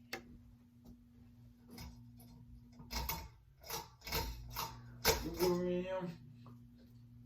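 Hunter Discovery ceiling fan running with a steady low motor hum, a noise its owner calls very noisy. A sharp click comes just after the start, and a cluster of knocks and rustles, ending in a short pitched sound, comes about three to six seconds in.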